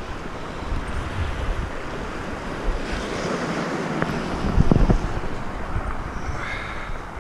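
Wind buffeting the microphone over the steady wash of sea surf, swelling for a couple of seconds in the middle, with a few sharp clicks around four to five seconds in.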